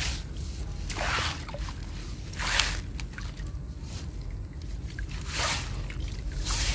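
Water splashing and sloshing in short bursts, about five in all, as a push net full of small fish and shrimp is handled in shallow water, over a low steady rumble.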